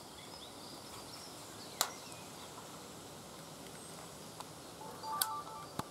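Faint, short high chirps of small birds over a steady outdoor hiss, broken by two sharp clicks, one about two seconds in and one near the end.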